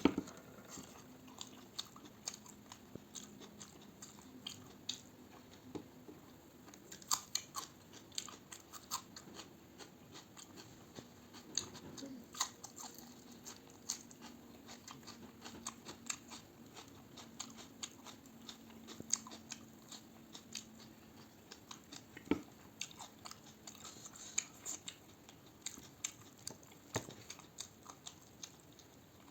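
A person chewing and biting food close to the microphone, with many short, irregular smacks and small crunches.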